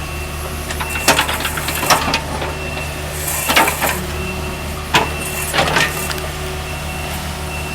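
Heavy construction equipment running, with a steady low engine hum, a backup alarm beeping at even intervals, and several sharp clanks and knocks.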